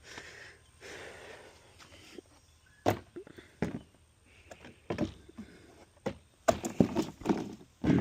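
A string of irregular knocks and thuds, some sharp and some duller, with a faint shuffling rustle at the start and the knocks coming closer together in the second half.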